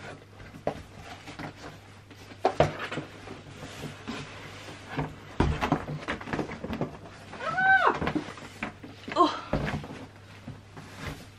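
Cardboard boxes being handled: the iMac's retail box scraping and knocking against the inside of its cardboard shipping box as it is worked up and out, with a heavier thump about five and a half seconds in and a brief squeak near eight seconds.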